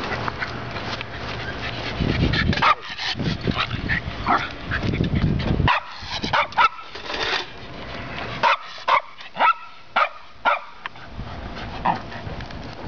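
A dog barking: short, sharp barks in quick bouts from about two seconds in until near the end, over the rushing noise of a bicycle ride.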